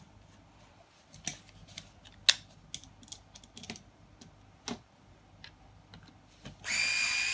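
Scattered light clicks and taps of small parts being handled and fitted at a stroller's wheel axle, one of them sharper. Near the end a Cocraft cordless electric screwdriver starts up with a steady high whine, driving the axle cap's screw in.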